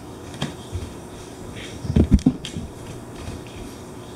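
A few dull thumps and light knocks in a quiet room, the loudest a quick cluster of thumps about two seconds in.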